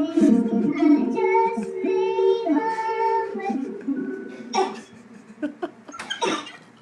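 Singing through a voice changer over a video call, sounding child-like. The voice holds sung notes for about four and a half seconds, then stops and gives way to a few sharp clicks and a short breathy burst near the end.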